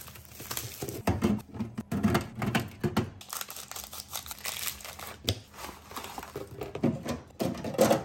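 Plastic food packaging crinkling and tearing as it is pulled open by hand and cut with scissors, in irregular crackles and sharp snips.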